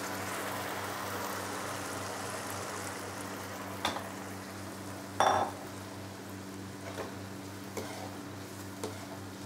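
Tomato purée sizzling as it fries in hot oil with the onions in a pan, steady throughout. A steel slotted spoon stirring it knocks against the pan a few times, with one short scrape about five seconds in.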